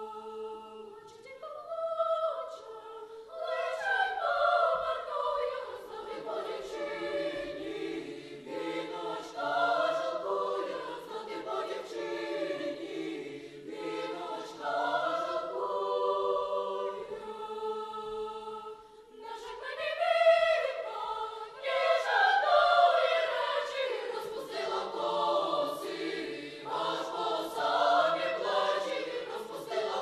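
Children's choir singing in several parts, starting softly and swelling into full, louder singing a few seconds in, then dropping back and rising again to a full section after the midpoint.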